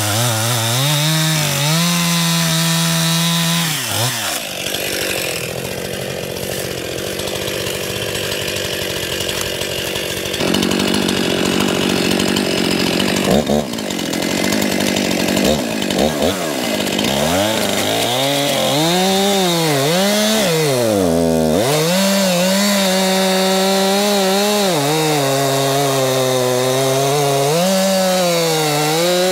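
Stihl MS261C two-stroke chainsaw cutting through a shagbark hickory log. It starts at full revs; about four seconds in the engine note sinks into the grinding noise of the chain in the cut for roughly twelve seconds. It then revs up and down a few times and runs on at high revs.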